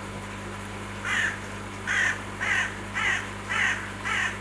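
A crow cawing, a run of about six harsh caws roughly half a second apart, starting about a second in, over a steady low hum.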